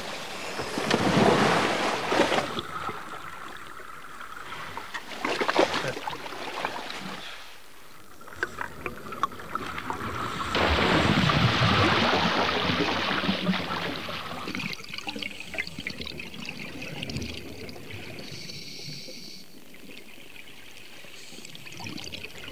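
Water sounds from a scuba diver entering the sea from a boat: splashing, and about ten seconds in a loud rush of water and bubbles that fades over a few seconds into quieter underwater noise.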